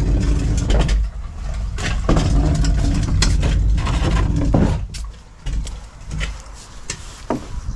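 Plastic tandem sit-on-top kayak being pushed along a paved path on its stern wheel: a steady low rumble with occasional knocks and scrapes. The rumble drops away about five seconds in as the kayak rolls onto grass, leaving a few light knocks.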